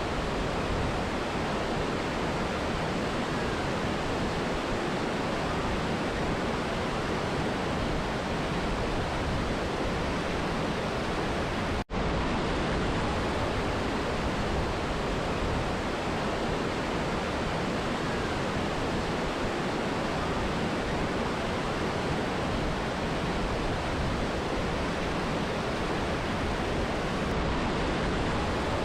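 Steady, dense rush of a mountain river and waterfall, with one split-second gap in the sound about twelve seconds in.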